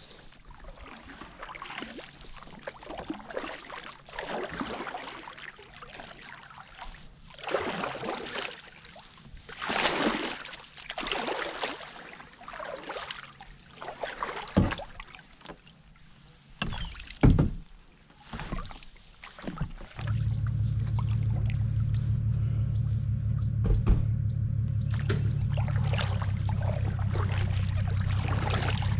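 Kayak paddle strokes: the double-bladed paddle dipping and pulling through the water in swishing swells every second or two, with a few sharp knocks of the paddle on the kayak. About two-thirds of the way in, a steady low rumble sets in and becomes the loudest sound.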